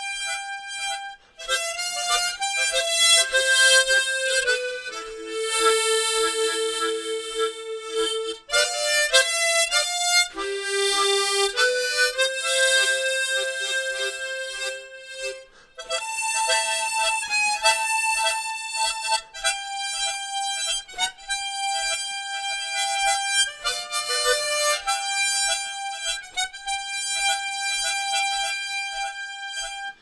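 Harmonica playing a slow melody in long held notes, with short breaks between phrases.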